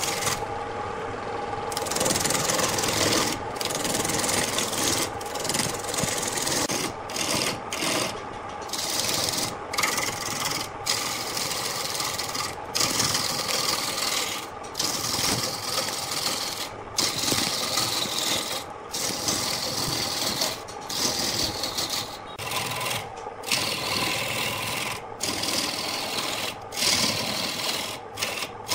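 Wood lathe turning a large wooden blank while a hand-held turning tool cuts into it: a steady scraping, hissing cut that breaks off for a moment every second or two. The lathe's motor hums faintly underneath.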